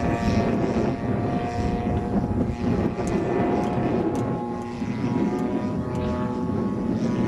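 Quarter-scale RC Extra 300S aerobatic plane in flight, its DL-50 two-stroke gasoline engine and propeller droning steadily, the pitch shifting slightly as it manoeuvres.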